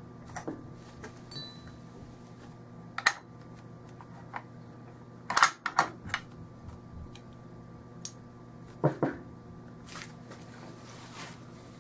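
Steel parts of a Norinco SKS rifle clicking and knocking as it is field-stripped by hand: the bolt carrier and bolt are slid out of the receiver and set down on a towel-covered table. The knocks are scattered, the loudest a quick cluster about halfway through, over a steady low hum.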